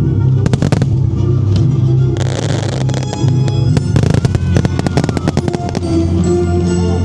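Fireworks bursting over a loud music soundtrack. There are sharp bangs throughout, a dense crackle about two seconds in, and rapid popping crackles after it, while steady low-pitched music plays underneath.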